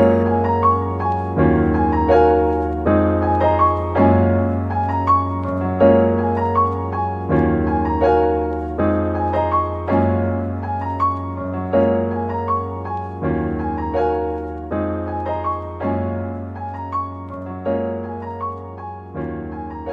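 Background music: a piano-led instrumental with a steady bass line and evenly paced notes, fading toward the end.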